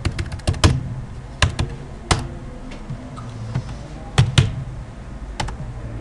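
Clicking of a computer keyboard and mouse: a quick run of clicks in the first second, then single clicks spaced out through the rest.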